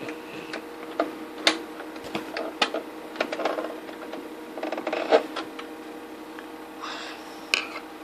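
Metal tweezers clicking and scraping inside a computer's DVD drive while working out a stuck match: a string of irregular clicks and short rattles, over a steady hum.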